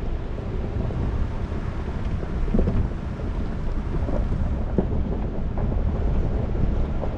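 Ford Bronco on the move: a low, steady rumble of engine and road noise, with a few short knocks about two and a half and five seconds in.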